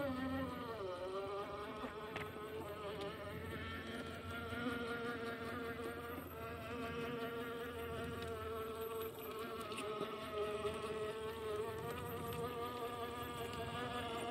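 Traxxas TRX-4 Sport RC crawler's electric motor and geared drivetrain whining as it crawls, the pitch dropping in the first second, then holding steady with slight rises and falls as the throttle changes.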